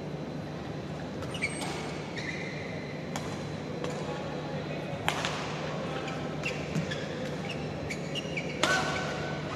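Badminton rally: rackets strike the shuttlecock again and again, with short squeaks of court shoes on the floor between hits, over a steady hall hum. The loudest hit and squeak come near the end.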